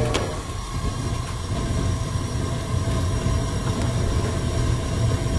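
Gas water heater's main burner running after lighting, a steady low rumble of the flame, with one small click just after the start.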